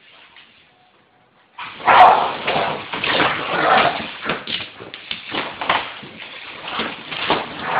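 Pit bull growling and barking in a frenzied attack, starting suddenly about a second and a half in after a quiet start and carrying on in rough, loud bursts.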